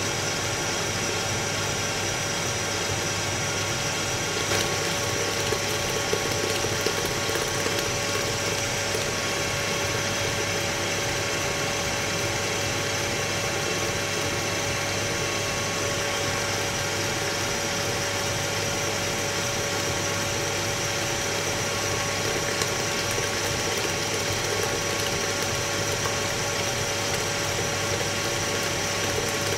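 Electric stand mixer running at a steady speed, its motor giving an even hum as the flat beater turns through creamed cake batter in a glass bowl while beaten egg is slowly trickled in.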